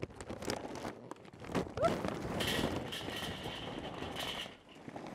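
Charcoal briquettes clattering onto the metal charcoal grate of a kettle grill as they come out of the bag, with the bag rustling. There are scattered knocks at first and a dense run of clatter in the middle.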